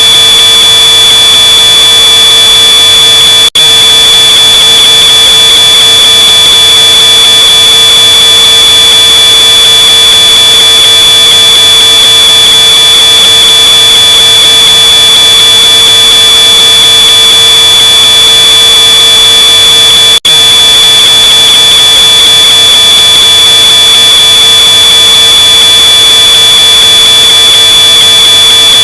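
Smoke alarm sounding one continuous high-pitched tone, boosted to an extreme, distorted loudness. It cuts out for an instant twice, a few seconds in and about two-thirds of the way through.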